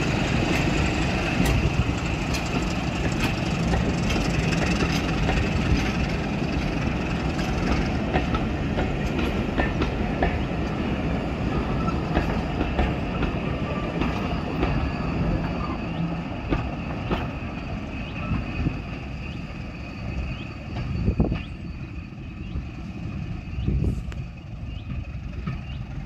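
Diesel-hauled train of passenger coaches pulling away, its wheels clicking over the rail joints as it rolls off; the rumble slowly fades, with a few louder clanks near the end.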